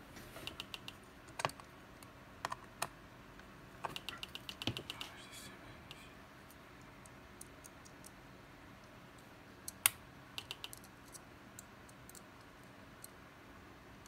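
Scattered bursts of small, rapid clicks and taps from a small screwdriver and tiny pentalobe screws being handled and driven into a laptop's bottom cover.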